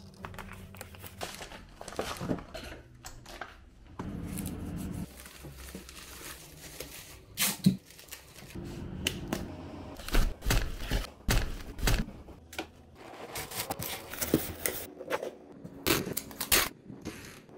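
Plastic wrapping crinkling and rustling as hands wrap a foil tray, with short handling knocks. Near the end comes the tearing rasp of packing tape pulled off a roll and pressed onto a cardboard box.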